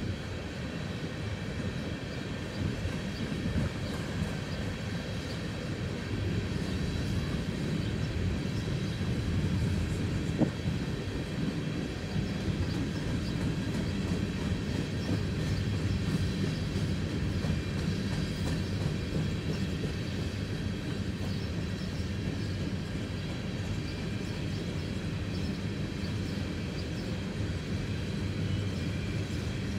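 Empty coal hopper cars of a freight train rolling past, a steady rumble of wheels on rail, with one sharp knock about ten seconds in.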